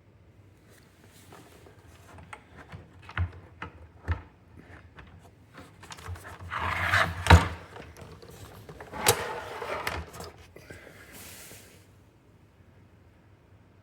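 A turntable being handled: scattered clicks, light knocks and rubbing or scraping, with the loudest knock about seven seconds in and another around nine seconds, and a brief rustle near the end.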